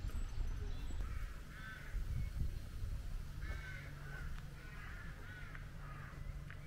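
Birds calling outdoors: a string of short, harsh calls, one every second or so, over a low rumble.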